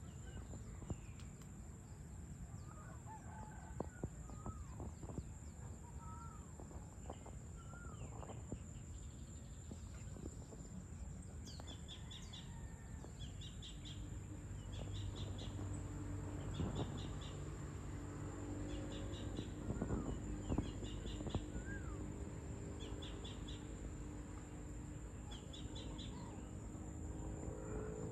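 Evening outdoor ambience of birds calling: short rising and falling chirps at first, then a rapid clicking call repeated about once a second. These sit over a constant low background rumble, with a steady hum coming in about halfway.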